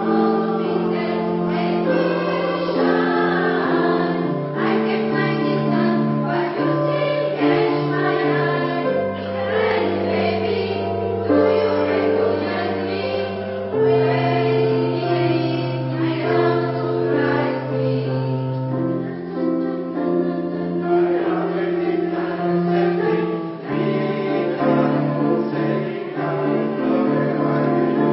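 Polyphonic choir singing in several parts, holding long chords whose notes change every few seconds.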